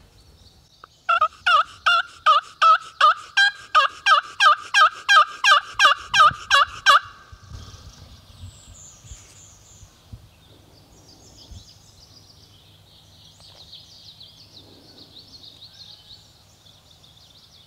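Wild-turkey yelping: a fast, loud run of about twenty evenly spaced yelps, roughly three a second, lasting about six seconds, then fainter small-bird chirps.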